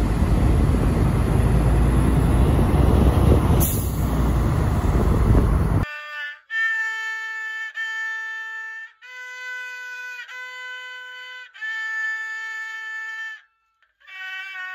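Loud street traffic noise with a deep rumble, cut off suddenly after about six seconds. Then a haegeum, the Korean two-string bowed fiddle, is played slowly: a few long bowed notes, each held with small slides in pitch, separated by short breaks between bow strokes.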